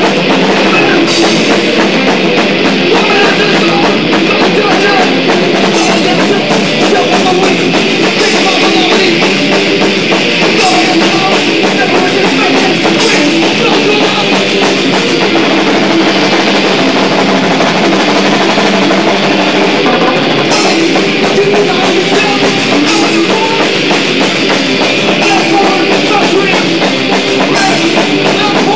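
Hardcore punk band playing live: distorted electric guitar and drum kit, loud and continuous, with cymbal crashes every few seconds.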